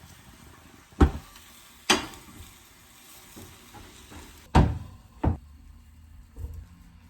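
Kitchen clatter: about five sharp knocks and thuds, such as cupboard doors or dishes and pans being set down, spread over a few seconds, the loudest two about halfway through.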